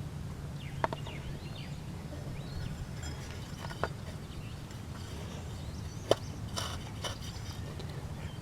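Three short, sharp clicks and knocks, about one, four and six seconds in, from the riding mower's variable-speed drive pulley being oiled and worked up and down by hand to free it, over a steady low hum.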